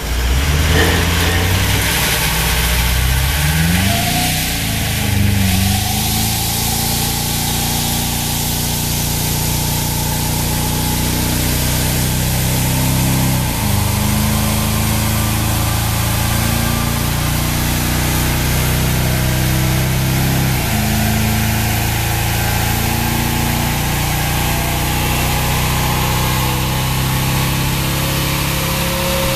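Toyota Land Cruiser 200 Series V8 diesel running through an aftermarket dual 3-inch stainless exhaust, working under load. Its note climbs slowly and drops sharply twice, about 13 and 21 seconds in, as at upshifts.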